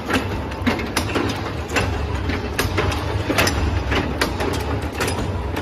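Honeycomb charcoal briquette punching machine running: a steady low motor hum with repeated metallic clanks and knocks from the punching and mould-table mechanism, about two a second.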